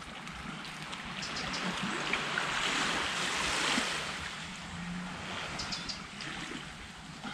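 Sea waves washing onto the beach, swelling to a peak about three to four seconds in and then fading, with a few faint clicks of a knife cutting fish fillets on a wooden board.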